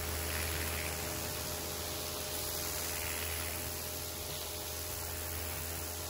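Karcher K5 Compact pressure washer running with its Dirt Blaster rotating-nozzle lance, blasting a jet of water onto a concrete paving slab. It makes a steady hiss of spray over a low, even hum.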